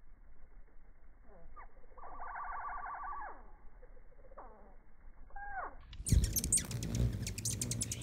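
Hummingbird calls slowed down and dropped in pitch by slow-motion playback: drawn-out falling glides and a buzzy trill. About six seconds in, the sound switches to normal speed, with rapid, sharp, high hummingbird chips and clicks.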